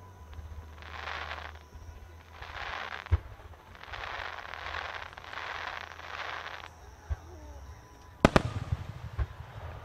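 Fireworks display: several swells of hiss over a low rumble, with a couple of dull thumps, then sharp loud bangs about eight seconds in as aerial shells go off.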